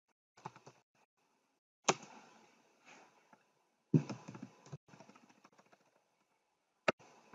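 Typing on a computer keyboard: scattered keystrokes, with sharper, louder key clicks about two seconds in, four seconds in and near the end.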